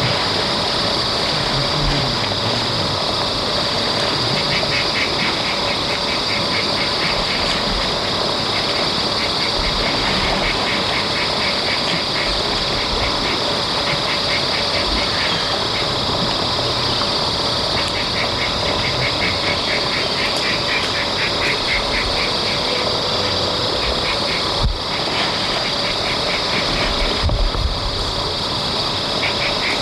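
Wetland ambience: a steady hiss and faint hum, with repeated trains of rapid, pulsing animal calls coming every second or two. Near the end come a few low splashes of water stirred by a large animal wading.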